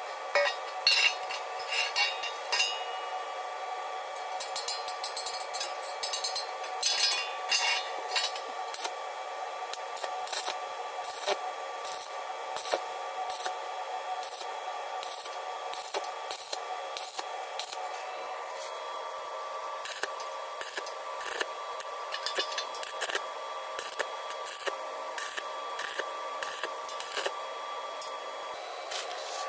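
Metal parts and hand tools clicking, knocking and scraping in irregular bursts, over a steady high hum.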